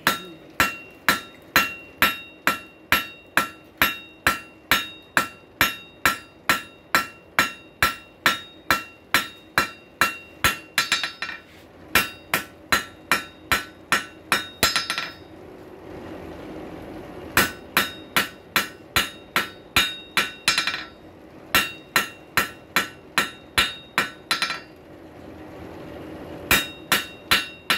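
Hand hammer striking a red-hot rail spike on an anvil, drawing out its point in quick, even blows of about three a second, with the anvil ringing on each strike. The hammering comes in several runs, broken by a few short pauses.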